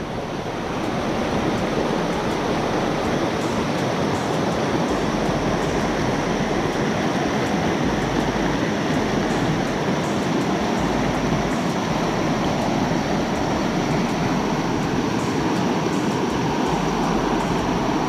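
Little River rushing over rocks in shallow rapids: a steady, even rush of white water.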